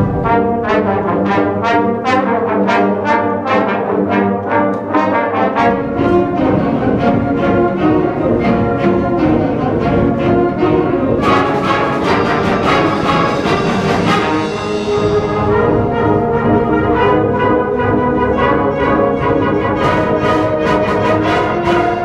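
School concert band playing loudly, brass to the fore, with rapid repeated notes over sustained chords. A bright wash of high sound enters about eleven seconds in and fades over about three seconds.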